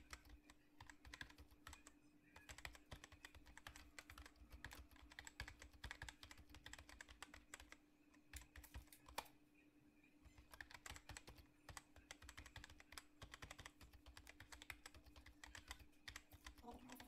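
Faint, rapid, irregular clicking like typing on a keyboard, easing off briefly about halfway through, over a steady low hum.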